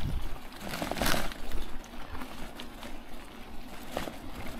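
Loaded touring bicycle moving over rough grass: tyres swishing through the grass with rustling and small knocks from the bike and its bags, in short bursts about a second in and again near the end.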